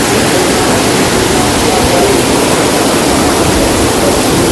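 Torrential downpour from a cloudburst: a steady, loud rush of pouring water.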